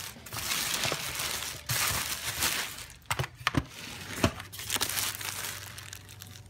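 Clear plastic wrapping bag crinkling and rustling as it is ripped open and pulled off a new Instant Pot, with a few sharp clicks about halfway through.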